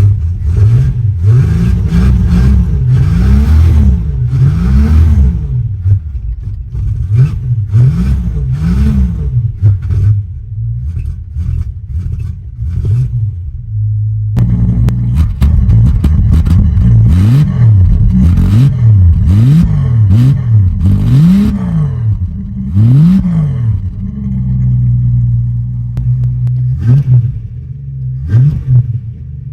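Old Ford Falcon's engine being revved hard again and again, pitch climbing and dropping in quick blips between short spells of idle, to clear it out after a hard, pedal-pumped start.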